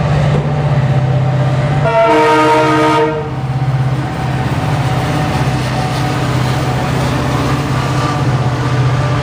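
Indian Railways diesel locomotives hauling a freight train past at close range, their engines giving a steady low drone. The locomotive horn blows one blast of about a second, sounding several tones at once, about two seconds in.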